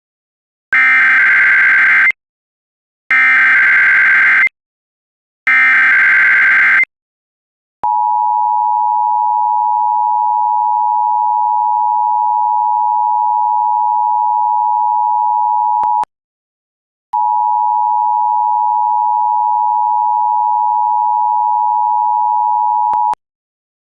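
Recreated Emergency Alert System signal for a Required Monthly Test. First come three bursts of the SAME digital header, a rapid warbling data tone lasting about a second and a half each. Then comes the steady two-tone attention signal, broken by a silence of about a second partway through.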